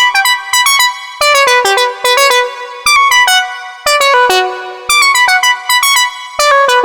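Arturia AstroLab keyboard playing a Jupiter-8 emulation synth patch: a bright, plucky synthesizer sound in short runs of falling notes, one run after another, each note ringing and fading.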